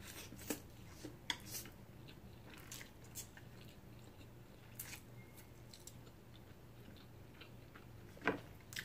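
Faint close-miked eating sounds: soft, wet chewing and mouth clicks as spicy instant noodles and a boiled egg are eaten, with one louder mouth sound near the end.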